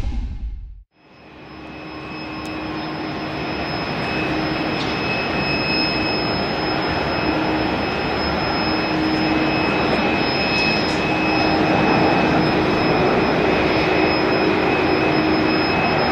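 Kuwait Airways Airbus A300-600R on final approach, its twin turbofan engines giving a steady jet rush with high whining tones, fading in about a second in and growing gradually louder as it nears. The tail of the intro music cuts out just before.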